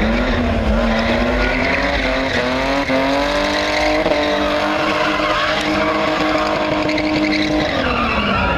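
Car doing a burnout: the engine revs climb over the first few seconds and are held high while the spinning rear tyres squeal and smoke, then the revs drop near the end.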